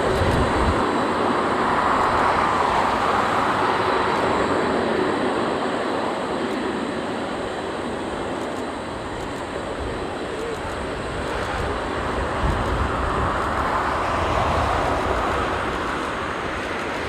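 Boeing 747 freighter's four jet engines roaring steadily on a crosswind landing approach, the sound swelling about two seconds in and again near the end.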